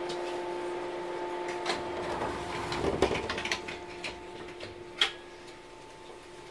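Stopped 415 series electric train humming steadily while its doors slide shut, with a rush and a thud about three seconds in and a few sharp clicks after; the surroundings grow quieter once the doors are closed.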